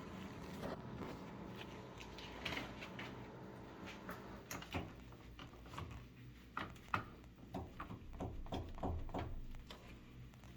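LG washing machine giving a faint low hum that fades over the first few seconds, with irregular light clicks and knocks through the rest.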